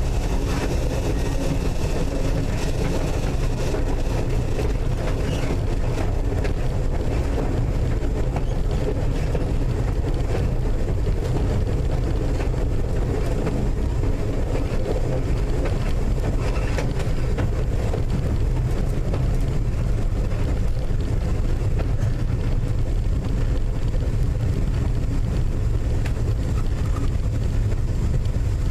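Steady running noise inside the North Shore Line 749 electric interurban car as it rolls along the track: an even, loud rumble of the car in motion.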